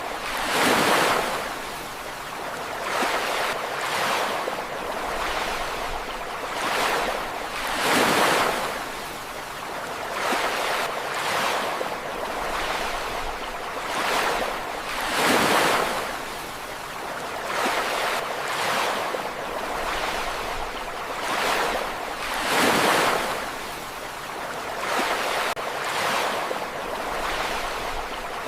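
Ocean waves breaking: a continuous rushing hiss that swells and ebbs, with a bigger surge about every seven seconds.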